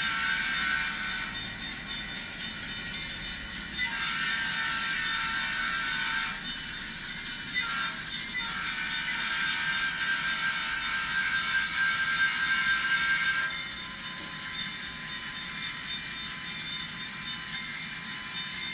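A model diesel locomotive's sound-decoder horn blowing the grade-crossing signal: a long blast ending about a second in, another long blast, a short one and a final long blast. The train's steady running sound continues after the horn stops.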